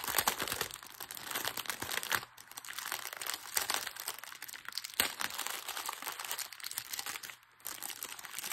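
Small plastic bags of diamond painting drills crinkling and crackling as hands sort through a strip of them, in irregular bursts with brief lulls about two and seven seconds in and a sharp click about five seconds in.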